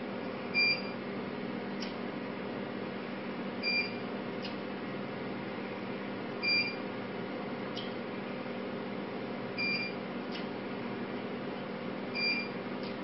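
Energist Ultra IPL machine during a photofacial treatment: a steady hum, with a short high beep about every three seconds, each followed within a second by a sharp click as the handpiece fires a flash. Five beep-and-click pairs in all.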